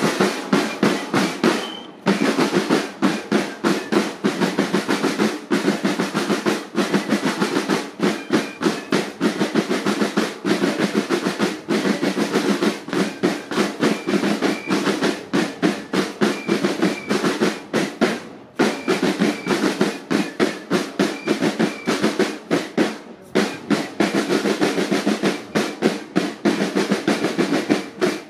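A marching drum line of snare drums playing a military cadence, with rapid rolls and crisp, evenly timed beats, broken by a few brief pauses.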